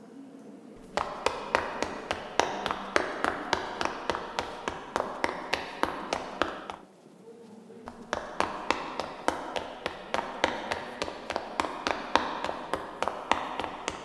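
Quick hard-soled footsteps, sharp taps about three or four a second, pausing for about a second around the middle and then going on.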